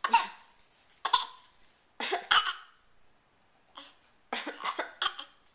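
A 6-month-old baby giving a string of short, deliberate coughs, about eight in all, some single and some in quick clusters. This is put-on coughing used to communicate and get attention, not a sign of illness.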